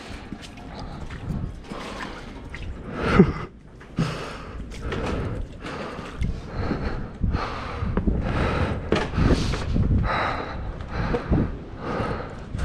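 Footsteps on a wet concrete floor and slatted metal steps, in a quick, even rhythm, with breathing close to the microphone.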